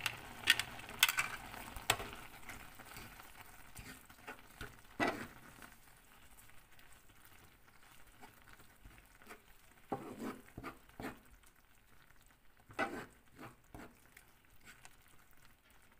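Chopped squid, onion and peppers sizzling gently in a frying pan while a wooden spatula stirs them. A few sharp clicks and scrapes of the spatula on the pan come in the first two seconds and again around five, ten and thirteen seconds in.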